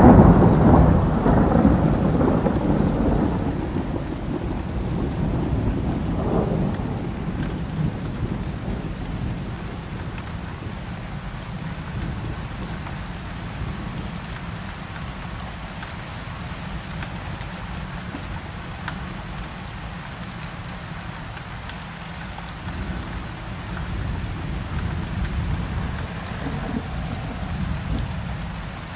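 Steady rain with thunder: a loud low rumble at the start fades away over the first several seconds, then an even rain noise continues.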